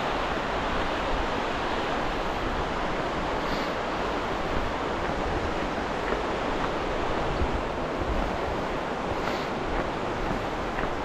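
Rushing whitewater of a rocky river: a steady, even rush of water over rapids.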